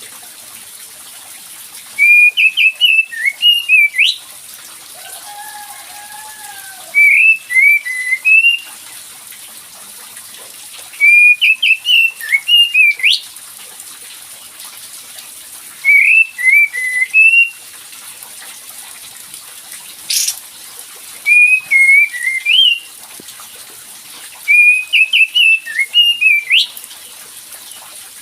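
Kapas tembak songbird singing its lure song: short phrases of quick, high, chattering notes, repeated every four to five seconds over a steady hiss. A fainter, lower drawn-out call comes about five seconds in.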